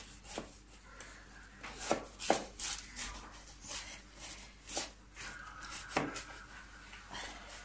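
Kitchen knife sawing through a baked puff-pastry-wrapped stuffed pork loin on a plastic cutting board: irregular scraping strokes, with a few sharp knocks scattered through.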